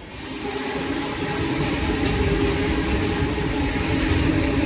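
Freight train of covered hopper cars rolling past at close range: a steady rumble of wheels on rail with a low steady drone over it.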